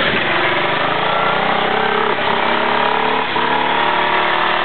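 Toro riding lawn mower's small engine running hard close by, its pitch shifting a little about two and three seconds in.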